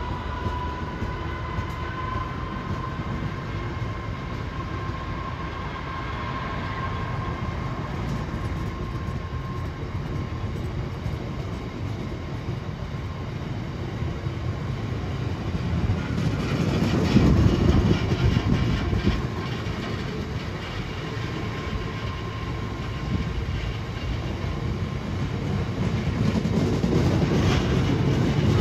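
Loaded Drax biomass hopper wagons rolling slowly past, their wheels rumbling and clattering on the rails, with a faint steady whine that fades over the first half. The rumble and clatter swell louder about two-thirds of the way in and again near the end.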